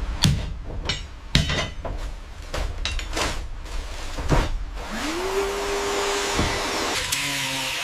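Workshop tool sounds: several sharp knocks like hammer blows, then about five seconds in a power tool whines up to speed and runs briefly over a steady hiss, and a lower steady hum of a tool follows near the end.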